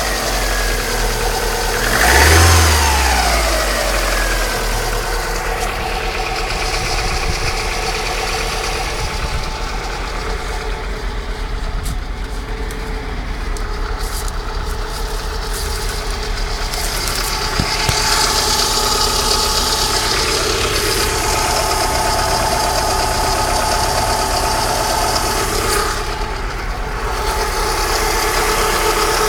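Alfa Romeo 155 2.0 Twin Spark 16V engine running, briefly revved about two seconds in, then running steadily with a mysterious noise that the owner suspects comes from bad alternator bearings.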